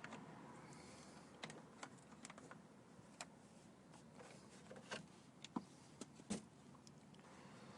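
Faint, irregular light clicks and taps of an oil filter wrench being fitted to and working on the plastic oil filter canister, about a dozen in all, most of them in the middle of the stretch.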